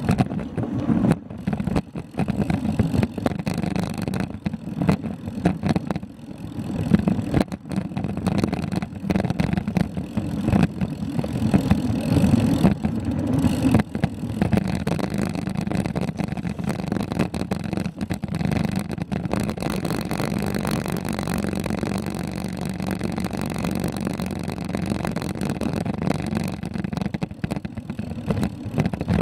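Bicycle tyres rolling over a loose gravel road while coasting at about 10 mph: a steady low rumble with frequent small crunches and rattles.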